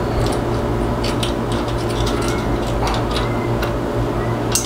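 Scattered small clicks and scrapes, about eight of them with the sharpest near the end, as the wire leads of a fan capacitor are worked into the slots of a power strip socket, over a steady low hum.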